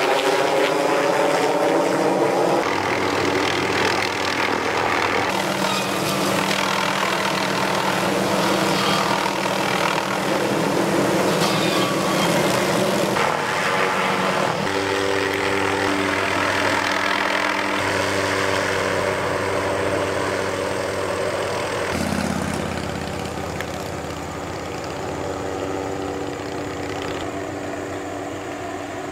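Helicopter engine and rotor running steadily overhead while it flies an aerial tree-trimming saw on a long line. The pitch slides in the first couple of seconds as it passes, and the hum changes abruptly a few times as the shots change.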